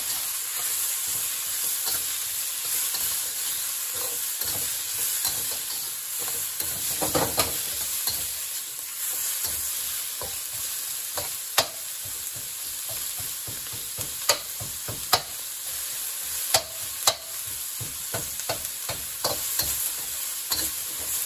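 Diced vegetables sizzling in hot oil in a wok with a steady hiss, stirred with a metal spatula. The spatula scrapes and clacks against the wok every second or two, with a few sharper knocks in the second half.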